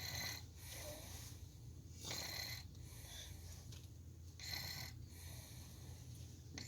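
A sleeping child snoring: three snoring breaths, about two seconds apart.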